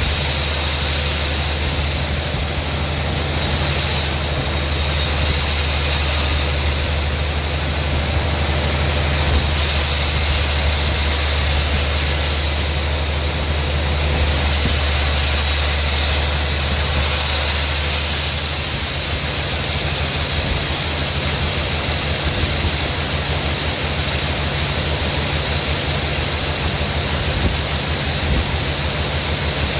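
Sawmill machinery running steadily: a low hum under a constant high hiss. The hum turns rougher and flutters about two-thirds of the way through.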